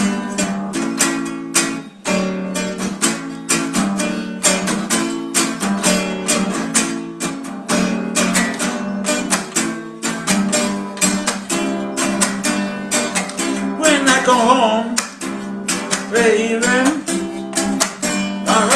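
Acoustic guitar strummed in a steady rhythm of chords. A singing voice comes in briefly past the middle and again near the end.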